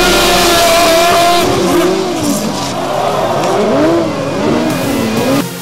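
Engines of several 1000cc racing sidecar outfits running hard, their pitch rising and falling as they are revved through a bend. The sound cuts off suddenly near the end.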